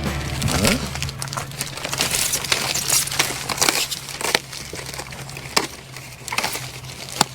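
Crinkling and rustling with many short, scattered clicks and knocks: handling noise of packaging and form panels, over a steady low hum.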